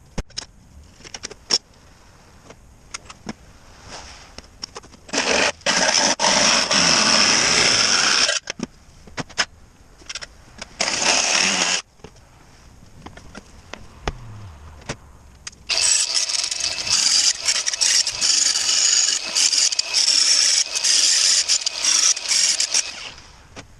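A power tool running in three bursts, the last one lasting about seven seconds, with clicks and knocks between the bursts.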